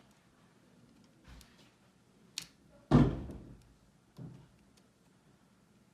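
A heavy thump about three seconds in, just after a sharp click, with a few lighter knocks around it.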